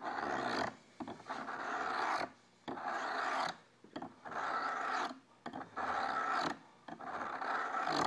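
Hand file rasping back and forth across the edge of a steel hook scraper blade to cut its bevel: about six strokes of roughly a second each, with short pauses between them. The file is chattering a little on the blade.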